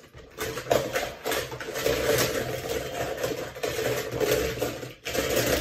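Small die-cast toy cars clattering and rattling against each other and a plastic bowl as they are stirred by hand. The jumble of clicks runs steadily, with a brief pause about five seconds in.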